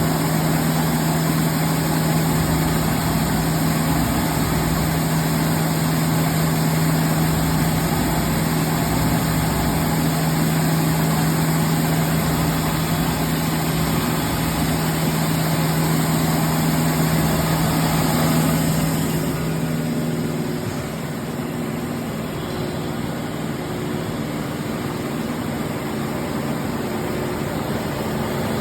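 Blanchard No. 22D-42 vertical spindle rotary surface grinder running: a steady machine hum with a strong low tone and a hiss above it. About 19 seconds in, the hiss fades and the sound gets a little quieter while the hum carries on.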